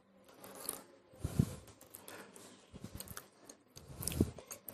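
Faint, scattered computer-mouse clicks, with a couple of soft short low thuds.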